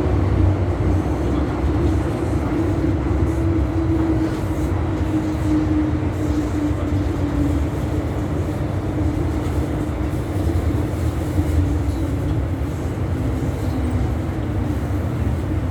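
MTR M-train electric multiple unit running, heard from on board: a steady low rumble with a hum that slowly sinks in pitch.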